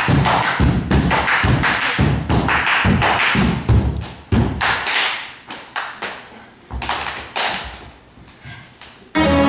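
Body percussion on a stage: a quick, uneven run of hand slaps, claps and thuds, several a second, that thins out to scattered hits about two-thirds of the way through. Music comes in just before the end.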